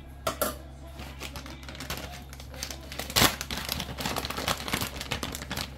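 Crinkling and crackling of something being handled, as of wrapping or packaging, with a sharp snap about three seconds in and denser crackling after it, over a low steady hum.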